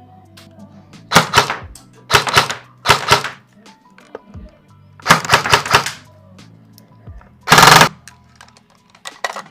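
Airsoft rifle, a Knight's Armament Stoner M16 type, firing on full auto in about six short bursts of rapid clicks. The burst a little before the end is the loudest and densest, and there is steady background music underneath.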